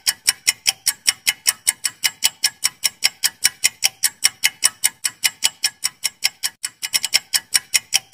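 Ticking sound effect of a quiz countdown timer: a fast, even run of sharp clock-like ticks, about five a second.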